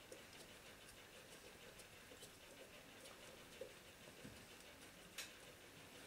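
Near silence with faint scattered clicks and taps of hands working on the washing machine motor's brush fittings, and one sharper click about five seconds in.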